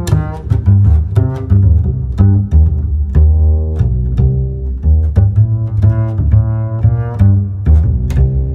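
Outro background music with a prominent low bass line under pitched instrument notes and a regular beat of sharp percussive hits.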